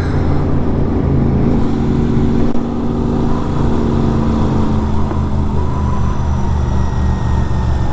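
Superbike engine running steadily through an aftermarket exhaust, with a deep, even note and a brief dip in level about two and a half seconds in.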